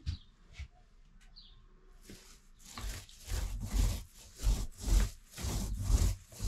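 Paint being applied to a ceiling in repeated strokes, about two a second, starting about two and a half seconds in. The stroke noise runs from a low thump up to a swish.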